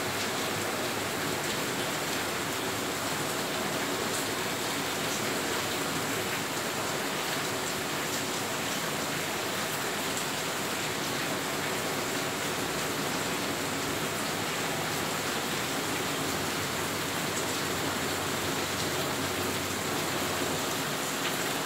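Heavy rain falling steadily, an even hiss with faint scattered drop ticks.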